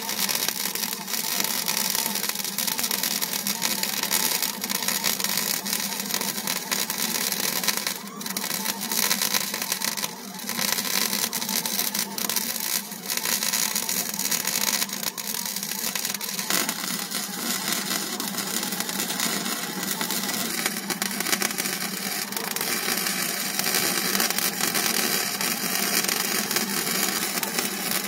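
Arc welding on a steel tractor loader bucket: a steady, harsh hiss with brief breaks about 8 and 10 seconds in and a change in texture a little past halfway.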